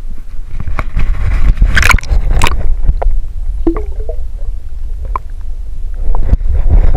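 Water splashing and sloshing close to the microphone over a steady low rumble, with a louder splash about two seconds in and scattered small knocks.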